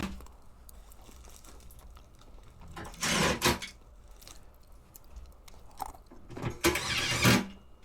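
Two short scraping, crunching handling noises, about three seconds in and again near the end, as washer parts are being fitted back together.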